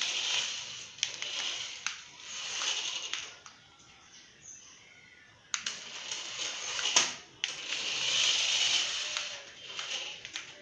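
Cheap toy remote-control car's small electric motor and plastic gears whirring in surges as it drives, with scattered clicks and knocks. It drops to near quiet for a couple of seconds in the middle, then runs again, with a sharp click just before it picks up.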